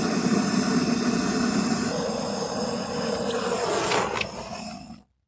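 Handheld gas torch flame hissing steadily as it lights charcoal in a chimney starter. The tone shifts slightly about two seconds in, and the sound cuts off suddenly near the end.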